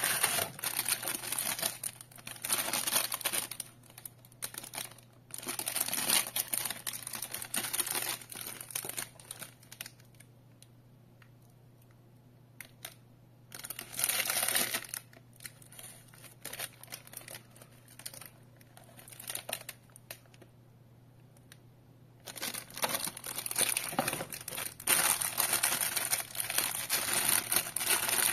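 Cardboard packaging and a thin plastic bag holding a power adapter and cable being handled and crinkled, in bursts. There is a quiet stretch in the middle, and the crinkling is densest over the last several seconds.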